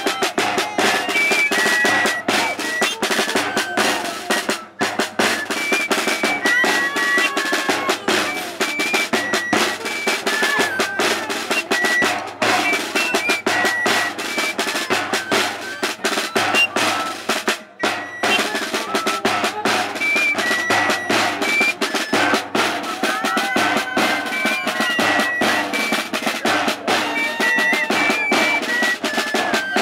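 Traditional Andean music: a drum beaten fast and steadily, almost a roll, under a transverse flute made of plastic pipe playing short, high repeated notes.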